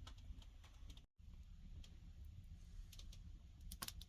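Wood fire burning in a wood-fired kiln: scattered sharp crackles and pops over a low rumble of the draft. The sound cuts out for a moment about a second in.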